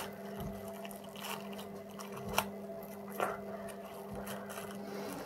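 A smoothie drink container being opened by hand: a few small clicks and handling noises, over a steady low hum that cuts off near the end.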